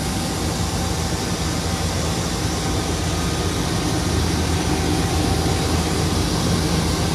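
Steady hum of running shop machinery: a low, even drone with a hiss over it, unchanging throughout.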